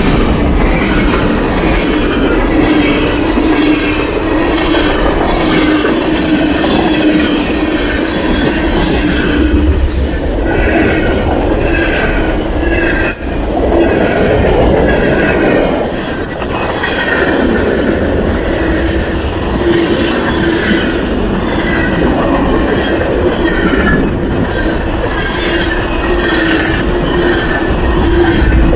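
Freight cars of a fast Norfolk Southern train rolling past close by, wheels clattering in a steady repeating rhythm, with a short dip in loudness about halfway through.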